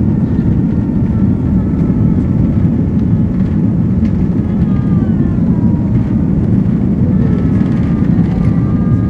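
Steady, loud rumble of an Airbus A330-200's engines and rushing air, heard from inside the passenger cabin.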